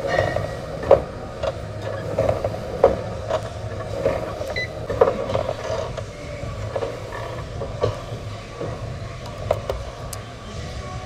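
Gym elliptical trainer creaking and knocking in rhythm with each stride, about one or two knocks a second, over a steady low hum.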